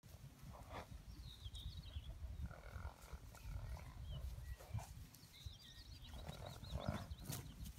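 Horses galloping across a grass pasture, their hooves thudding dully under a steady low rumble. Small birds chirp twice, about a second and a half in and again near the end.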